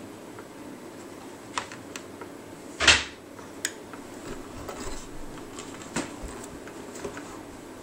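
Small clicks and taps of a metal hook and fingers against the clear plastic pegs of a rubber-band bracelet loom as bands are pulled over and hooked. There is a louder knock about three seconds in and a few sharp ticks after it, over a faint steady room hum.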